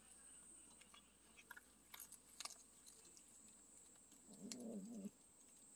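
Near silence: faint background with a steady high-pitched hiss, a few faint clicks, and one brief low wavering call about four and a half seconds in.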